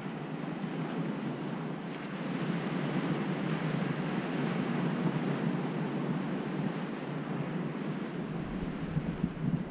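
Ocean surf washing steadily onto the beach, swelling a little in the middle. Wind rumbles on the microphone near the end.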